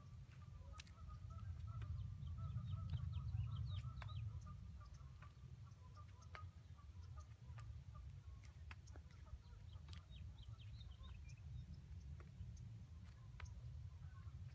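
Faint birds calling and chirping, many short scattered notes, over a steady low rumble, with a few faint clicks.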